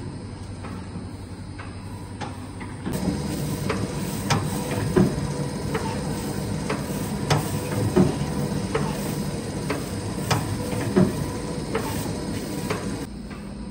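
Multimatic MUS G four-row dough roll machine running: a steady mechanical hum with repeated sharp clicks and knocks. From about three seconds in it is louder, with the heaviest knocks coming every second or few, and it drops back near the end.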